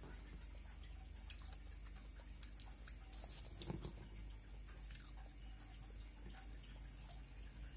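Faint eating sounds: wet mouth clicks of chewing and fingers working rice on a lined plate, with one louder tap about three and a half seconds in.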